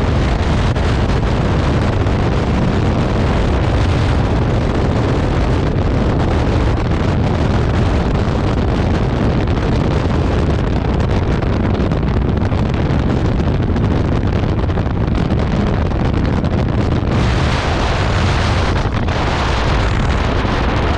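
Steady, loud wind rushing over the microphone of a Honda ADV 150 scooter ridden at about 110 km/h, with the scooter's engine running underneath. The rush grows brighter and harsher for a couple of seconds a few seconds before the end.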